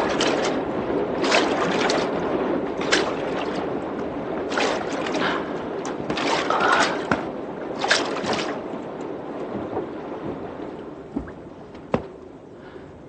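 Oars splashing and water sloshing as a wooden rowing boat is rowed, a stroke about every second and a half. The water sound fades over the last few seconds, with two short sharp knocks near the end.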